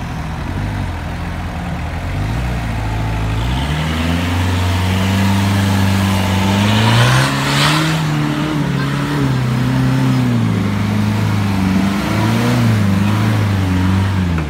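Competition 4x4 trial buggy's engine revving hard under load on a steep dirt climb, its pitch jumping up about three and a half seconds in and then rising and falling with the throttle. About seven seconds in a rush of noise comes over it as the tyres spin and throw dirt.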